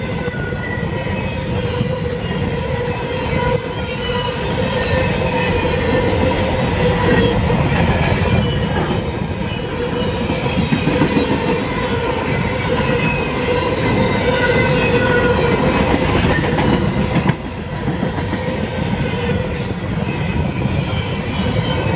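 Cars of a CSX garbage freight train rolling steadily past a grade crossing, the steel wheels squealing against the rail over a continuous rumble. There is a brief drop in the noise about seventeen seconds in.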